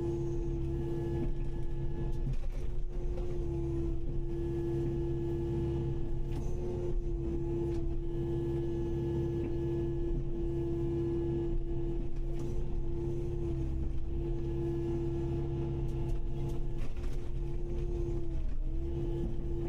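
Kubota KX080-5 excavator running steadily: a diesel engine with a constant high whine over it, the whine dipping briefly in pitch a few times.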